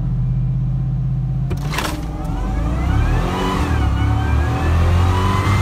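Supercharged 5.7-litre V8 of a Toyota Tundra at a drag run: the engine holds steady revs, then after a short rushing burst the pitch climbs hard under full acceleration, dipping once at a gear shift before climbing again, with a high whine rising along with it.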